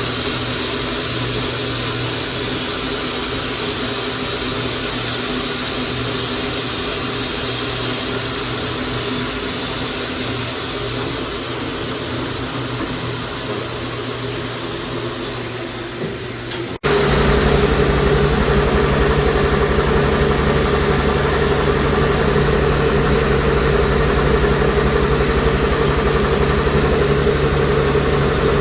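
Bridgeport TC3G vertical machining center running: a steady mechanical hum with fixed tones. About two-thirds of the way through, it cuts out for an instant and comes back louder and deeper.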